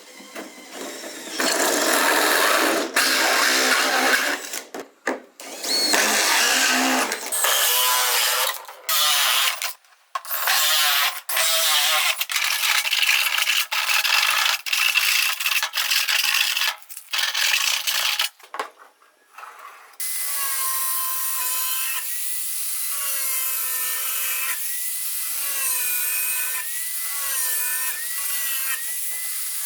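A handheld power tool working on water pipe. It runs in repeated bursts with short pauses, then runs more steadily in the latter part with a whining pitch that dips again and again.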